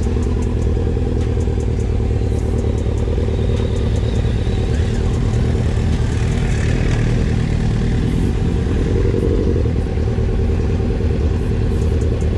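Motorcycle engine running steadily while riding, at an even road speed.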